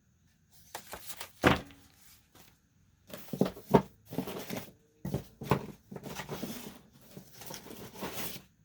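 Paper cards and envelopes being handled: irregular rustling and sliding with several sharp taps, the loudest about one and a half seconds in and near four seconds in.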